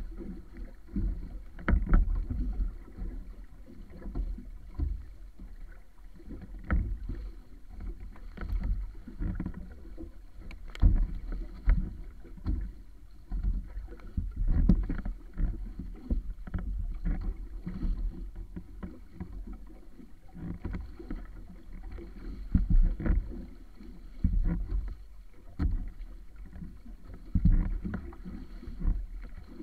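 Wooden outrigger sailing canoe (wa'apa) moving through choppy sea: water rushing and slapping against the hull in irregular low surges every second or two, with scattered sharp knocks from the boat.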